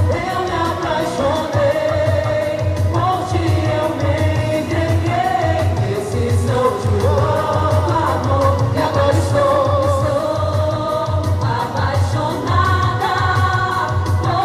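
Quadrilha junina song music: a sung melody over a steady, pulsing bass beat.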